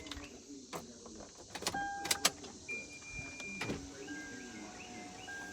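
Power window of a 2012 Toyota Tundra door being run with the door panel off, the motor driving the glass up, with several sharp clicks about two seconds in.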